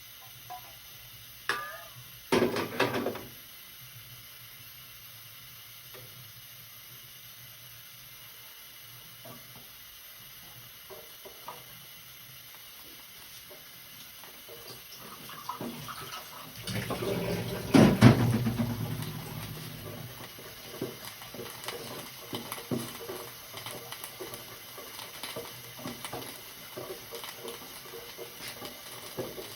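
Kitchen work sounds: a few sharp knocks from dishes or utensils, then running water from a tap for a few seconds past the middle, followed by scattered clinks.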